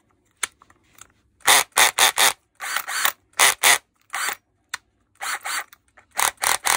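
Makita DDF453 cordless drill-driver run in about a dozen short trigger bursts with its chuck gripped by hand, the rebuilt gearbox's torque clutch ratcheting as it slips. This is a test of the repaired clutch, which works.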